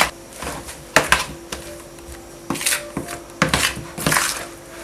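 Chopped plantain being mixed with a spice paste in a bowl to marinate it: a few scattered clinks and knocks of bowl and utensil, with soft handling sounds between.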